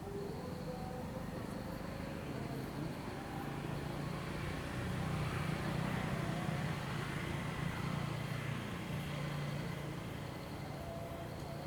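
Distant motor vehicle passing by: a low engine hum that swells to a peak about halfway through and then fades away. Crickets chirr at the start and again at the end.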